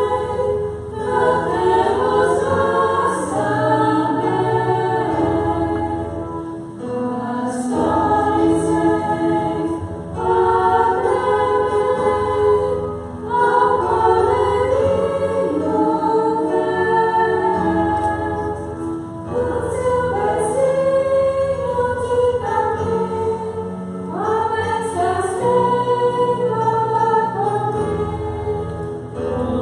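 Women's choir of nuns singing in parts, accompanied by an electronic keyboard holding sustained low notes. The singing runs in phrases of a few seconds, each followed by a short break.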